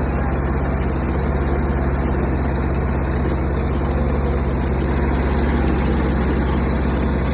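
Digmaster DM200 mini excavator's engine running steadily while the machine digs, its note shifting slightly about a second in.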